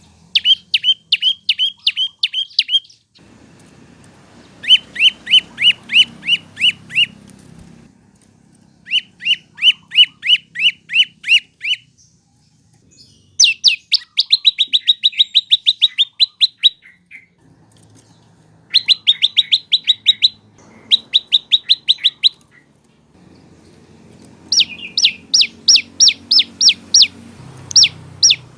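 Prenjak lumut (lancur) songbird singing in repeated bursts of rapid, sharp, downward-sliding chip notes, about eight to twelve notes a burst, each burst lasting two to three seconds with short pauses between. A faint low rumble sits underneath.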